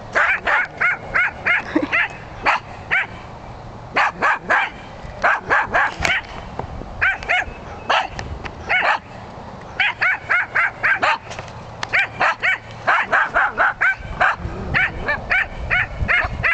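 Jack Russell terrier barking in quick runs of sharp, high yaps, several a second, with short pauses between the runs.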